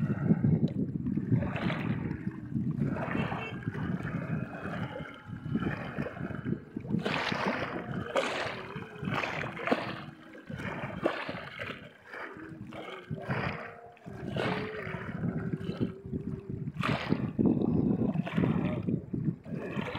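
Water lapping and splashing in irregular surges, with a faint steady tone running under it through the middle.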